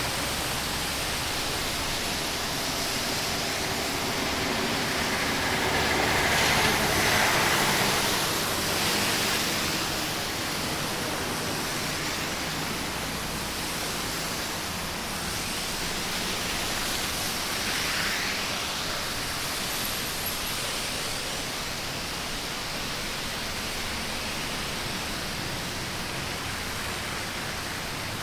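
Steady hiss of traffic on a wet highway, tyres spraying on the wet road surface, with a couple of louder passes swelling up and fading, one about a quarter of the way in and another past the middle.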